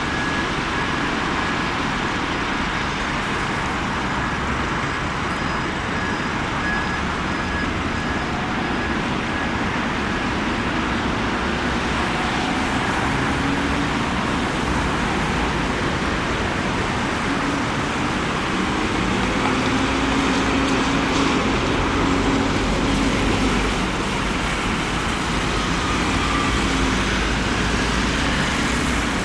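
Steady road traffic noise, a continuous wash of engines and tyres, a little louder in the second half with a faint whine through the first ten seconds or so.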